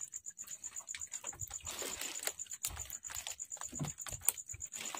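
Irregular wet clicks and taps with a few dull knocks as a fishing net is hauled by hand over the gunwale of a small wooden outrigger boat. A faint, fast, evenly pulsing high tone runs underneath.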